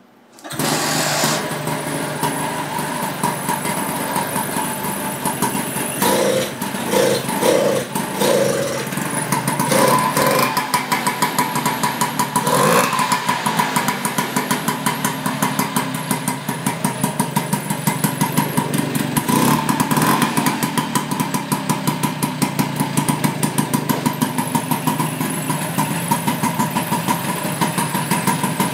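Vespa 150 GS's two-stroke single-cylinder engine catches suddenly and runs at idle, with a few short revs in the first twenty seconds before settling to a steady, pulsing idle.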